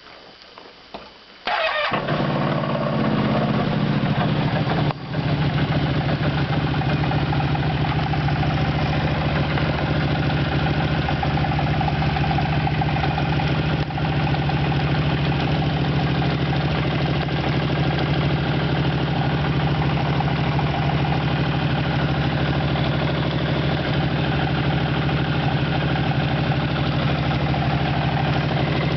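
CFMoto X8 ATV's twin-cylinder engine cold-started about a second and a half in, catching at once and settling into a steady idle, with one brief dip about five seconds in.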